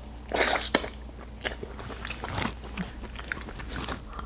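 Close-miked chewing and lip smacking while eating a seafood boil, with a rush of mouth noise about half a second in and scattered wet clicks after.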